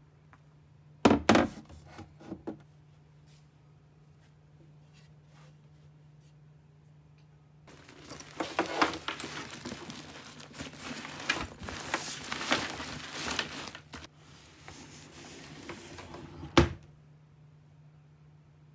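Handling noises in a small room: a loud thud about a second in, then several seconds of rustling and clattering, and a sharp knock near the end, over a steady low hum.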